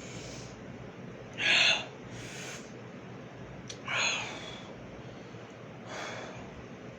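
A man's short, heavy breaths between gulps of soda, drawing breath while chugging: a loud gasp about a second and a half in, a fainter breath just after, another loud one about four seconds in, and a faint one near the end.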